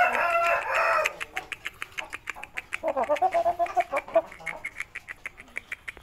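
Aseel rooster calling: a call of about a second at the start and another around three seconds in, over a run of quick, sharp ticks.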